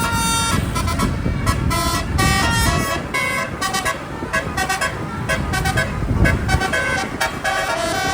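Bus 'telolet' horn, a set of multi-trumpet air horns, playing a fast tune of stepped notes that change several times a second, over a steady engine and road rumble.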